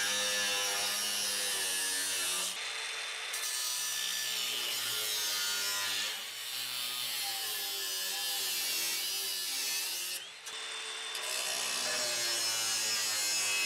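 Angle grinder with a thin cut-off wheel cutting through sheet steel of a car's radiator core support, its motor pitch wavering as the wheel bites into the metal. The cut eases off briefly twice, about two and a half seconds in and again near ten seconds.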